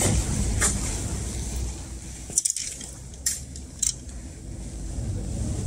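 Indoor shop ambience: a steady low rumble with a few short, sharp clicks, most of them between about two and four seconds in.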